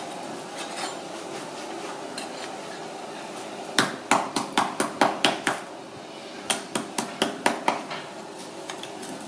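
Two quick runs of sharp knocks, about five a second: a knife blade striking the spit-roasted whole pig and its spit.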